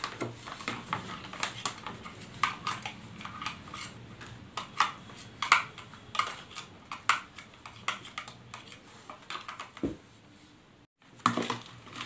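A metal spoon clicking and scraping against plastic bowls as chopped coriander is spooned and tipped into bhel puri and stirred in, with the crisp rustle of the puffed-rice mix. The small clicks come irregularly, with a silent break of about a second near the end.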